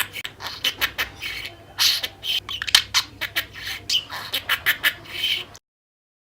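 Budgerigar chattering and warbling: a fast run of squeaky chirps, clicks and mumbled mimicked sounds, cutting off suddenly near the end.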